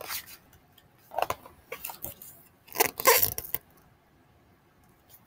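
Paper pages of a hardcover picture book being handled and turned: three short rustling bursts, the longest about three seconds in, then quiet.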